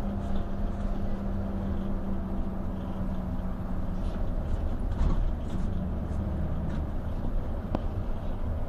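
Hino RG coach's diesel engine and road noise heard from inside the cabin while driving: a steady low rumble. A steady hum runs over it for about the first half, and there is a sharp click near the end.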